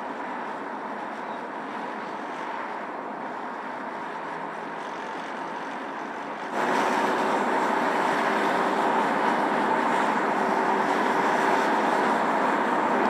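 Steady road noise of a car driving at speed on asphalt: tyre roar and wind with a faint steady tone. It jumps abruptly louder and brighter about six and a half seconds in.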